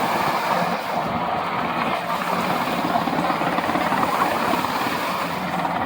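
Helicopter rotor and engine sound, a steady fast beating of the blades with a constant engine tone underneath.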